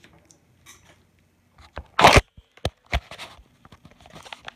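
Handling noise from the recording device being grabbed and moved: a loud rustling scrape about two seconds in, then a few sharp clicks and knocks.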